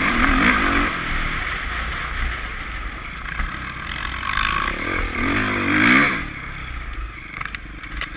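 Dirt bike engine revving up and easing off while riding, with the strongest rev about six seconds in before it drops back, over wind noise on the microphone.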